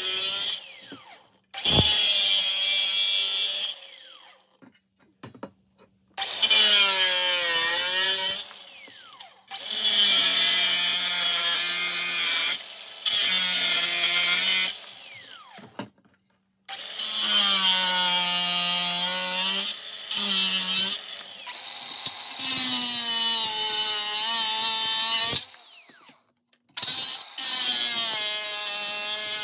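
Angle grinder with a thin cut-off wheel cutting through a metal mounting plate in about six runs of a few seconds each. The motor's pitch drops as the wheel bites and rises again as the load eases, and it stops between cuts.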